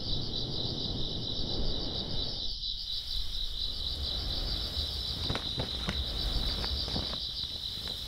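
Crickets chirring in a steady, dense chorus over a low background rumble, with a few faint clicks in the second half.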